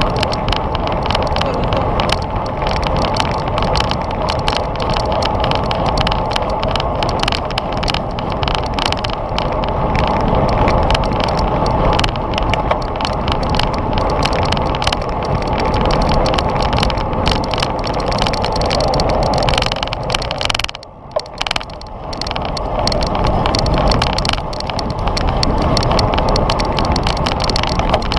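Wind rushing and buffeting over a GoPro's microphone on a bicycle moving at racing speed. The noise drops away sharply for about a second roughly three-quarters of the way through, then returns.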